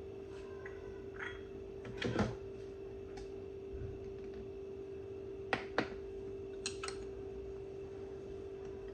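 A steady, even hum, with a few light clicks and knocks of objects being handled: a pair about two seconds in, and two more pairs later on.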